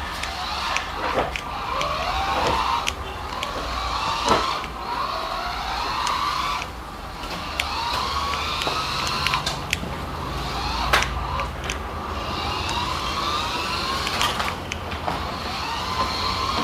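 Small electric motor of a budget toy RC drift car whining and rising in pitch again and again as it is throttled up, with a few sharp clicks scattered through.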